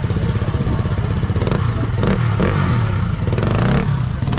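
Enduro dirt bike engine running at low revs with short throttle blips, the pitch swelling and falling as the rider works the bike over a log.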